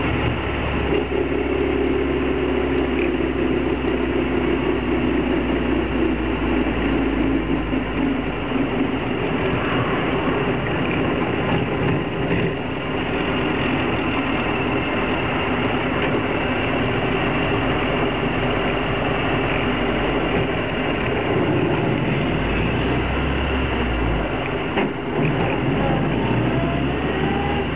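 Interior running noise of a 1933 Austin Seven saloon on the move: its small 747 cc side-valve four-cylinder engine running steadily under way, mixed with road and body noise heard from inside the cabin.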